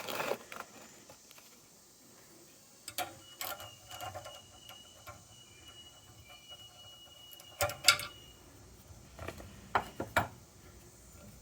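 Scattered metallic clicks and clinks of a nut, wrench and hydrant linkage parts being handled and threaded together, loudest in a pair of knocks about eight seconds in.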